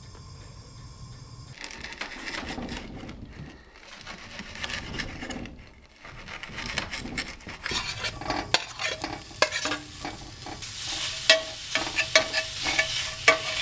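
Crumbled hot Italian sausage sizzling in a cast-iron skillet while a metal spoon stirs it and clacks and scrapes against the pan. The sizzle and clacks build up in the second half.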